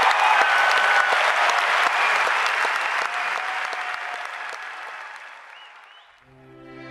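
Large crowd applauding with scattered cheers, fading away over about six seconds. Soft instrumental music starts just before the end.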